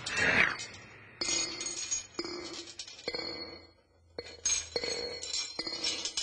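A series of ringing glass clinks: several sharp strikes at uneven intervals, each with a short ring.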